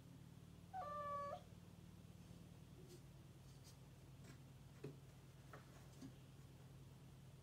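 A cat meows once, a short call about a second in, followed by a few faint light taps.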